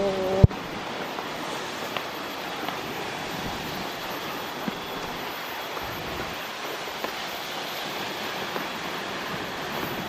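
Waterfall rushing as a steady, even hiss, with one sharp click about half a second in.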